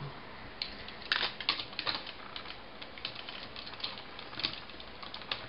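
Hard plastic parts of a Transformers Galaxy Convoy toy clicking and clattering as they are handled and fitted together: a run of irregular sharp clicks, the loudest a little over a second in.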